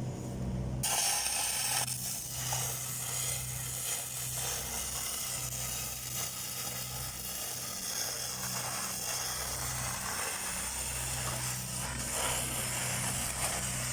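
Stick-welding arc crackling and sizzling steadily, struck about a second in, over the steady hum of an engine-driven welding machine.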